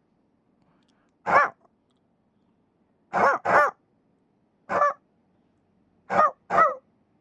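Puppy yipping: six short, high barks, several in quick pairs, each rising and falling in pitch, with silence between them.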